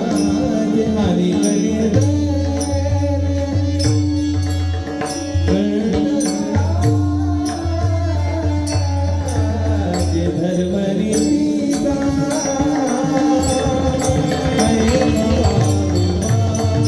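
Marathi devotional bhajan: high-pitched male singing over a steady sustained drone, with small hand cymbals struck in a regular beat and drum strokes underneath.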